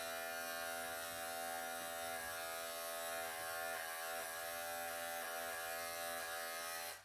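Wahl electric pet clippers running with a steady buzz while shaving matted fur off a longhaired cat, then switched off near the end.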